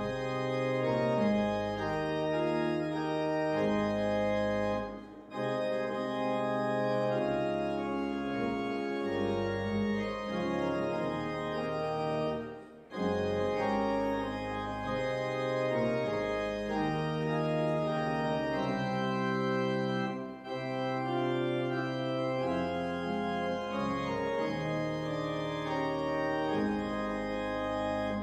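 Church organ playing the postlude at the end of the service: sustained chords moving in phrases, with three brief pauses between them.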